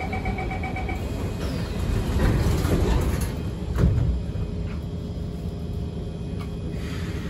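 MRT door-closing warning beeps, a quick run of evenly spaced beeps at two pitches in the first second, then the doors sliding shut with a rush and a thump about four seconds in, followed by the steady hum of the train.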